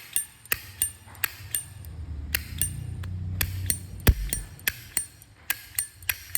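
Chrome Slim Zippo lighter's lid being flicked open and snapped shut over and over, a quick run of sharp metallic clicks with a short bright ping after each, one louder clack about four seconds in. The lid snaps against a replaced cam.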